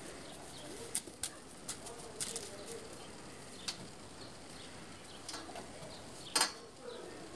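A Dogo Argentino's paws and claws on a metal-framed mesh garden swing: scattered light clicks and knocks, then one louder short rush of noise about six seconds in as the dog paws at a kitten on the seat.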